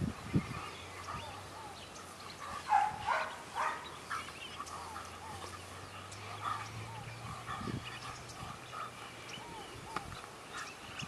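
Belgian Malinois barking in a quick run of sharp barks about three seconds in, as it lunges on the leash at a decoy in protection training. Faint high chirps and a low steady hum follow.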